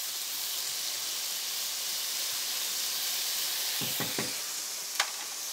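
Mushroom stems, rosemary and garlic sizzling in hot oil in a cast-iron pan: a steady frying hiss as the aromatics for a pan sauce cook. Two or three soft knocks come about four seconds in, then one sharp click near the end.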